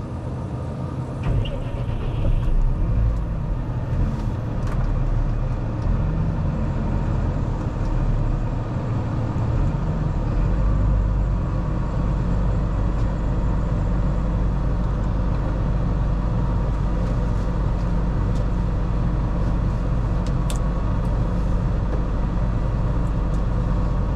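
Tractor diesel engine running, heard from inside the closed cab. Its note shifts a few times in the first ten seconds or so, then holds steady.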